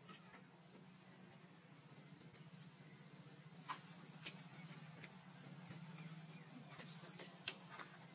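Insects droning steadily at one high pitch, over a low hum, with scattered faint clicks and rustles.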